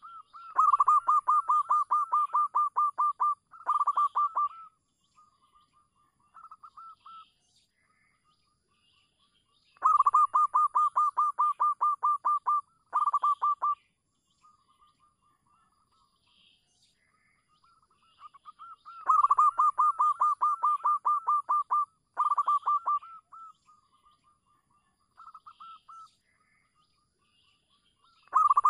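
Zebra dove song: a fast run of short, clipped cooing notes, a brief second run, then a few softer notes. The phrase comes three times and begins a fourth near the end, roughly every nine seconds.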